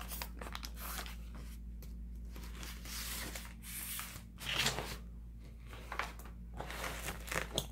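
Paper record sleeve and cardboard album jacket being handled: a series of soft rustles and slides, the loudest about halfway through, over a steady low hum.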